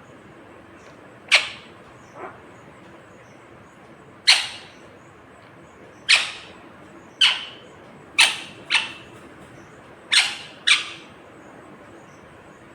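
Indian ringneck (rose-ringed) parakeet giving about nine short, sharp squawks, each falling in pitch, spaced a second or two apart, with the last four in quick pairs.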